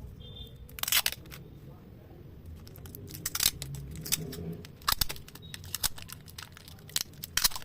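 Irregular sharp clicks and knocks of the mop spinner's parts being handled and worked apart, some coming in quick pairs.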